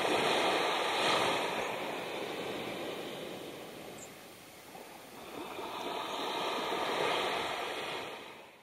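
Small waves lapping onto a sandy beach. The wash swells twice, at the start and again about seven seconds in, then fades out.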